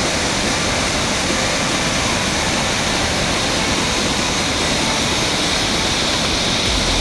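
Waterfall, a loud steady rush of falling water.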